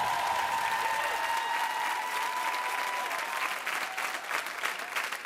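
Studio audience applauding at the end of a live rock song. A steady high ringing tone under the applause fades out about three seconds in.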